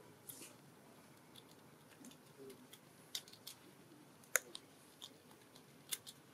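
Faint background with a few short, sharp clicks scattered through it, the loudest about four seconds in and another near the end.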